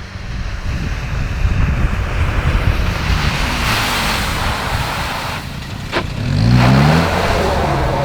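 Motor vehicle engine heard through wind buffeting on the microphone. About six seconds in there is a sharp click, then the engine revs up and settles into a steady run.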